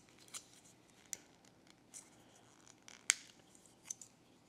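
Faint, sharp clicks and snaps of PLA tree supports being broken off a small 3D-printed part by hand, about five in all, the loudest a little past three seconds in.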